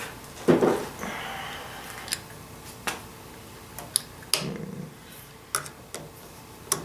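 Scattered clicks and light knocks of a Phillips screwdriver and fingers working the screw of a handlebar control housing on an ATV, the loudest a duller knock about half a second in.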